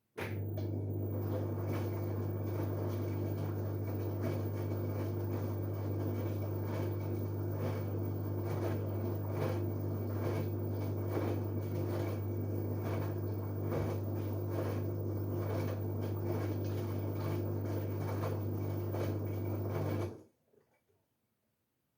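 LG Direct Drive 8.5 kg washing machine running: a steady low hum with many irregular clicks and knocks, starting abruptly and cutting off suddenly near the end.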